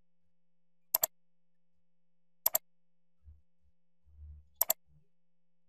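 Three mouse clicks, spaced a second or two apart, each a quick double tick of the button pressing and releasing.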